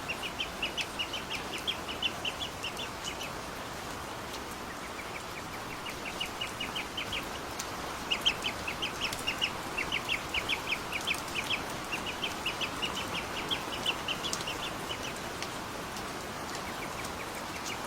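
Ducklings peeping: fast runs of short high peeps, about seven a second, in bouts of one to three seconds with brief pauses, over a steady hiss.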